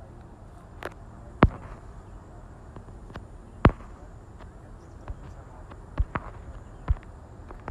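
A handful of sharp, irregular knocks or taps, about seven in all, the loudest two near one and a half and nearly four seconds in, over a low, steady rushing background noise.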